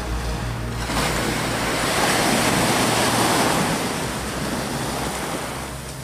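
Ocean surf: a wave breaking and washing up the shore, swelling about a second in, loudest in the middle, then easing off as it spreads out.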